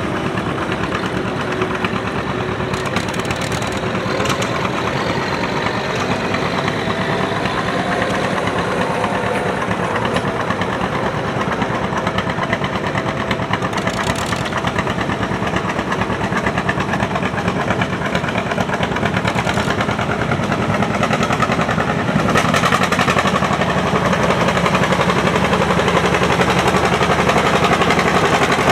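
Antique farm tractor engine running steadily with a fast, even firing beat, getting louder about three quarters of the way through.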